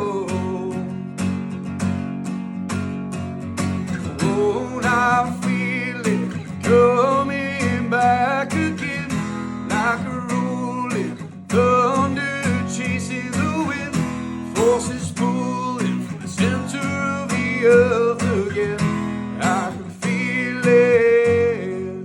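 Acoustic guitar strummed with a sung melody over it: a solo vocal-and-guitar performance.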